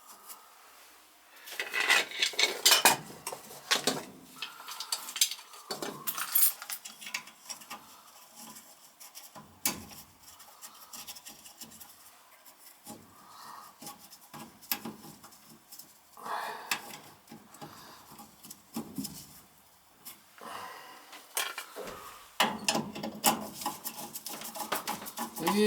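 Tools and metal furnace parts handled during repair work: irregular clicks, knocks and rattling clatter, with a little scraping, in clusters about two to four seconds in and again near the end.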